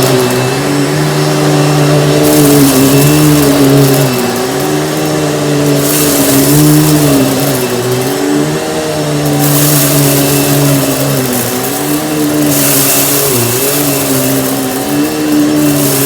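Panasonic upright vacuum cleaner running, its motor hum steady apart from brief dips in pitch every few seconds, with a rush of air that swells and fades.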